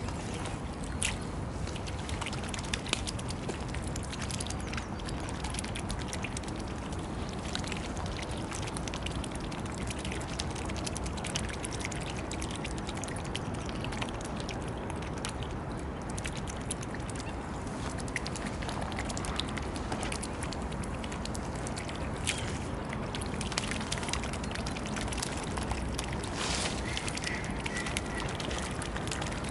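Mute swans feeding at the water's surface, their bills dabbling and sloshing among floating pellets with many small clicks and splashes, over a steady background hiss. A brief high note sounds near the end.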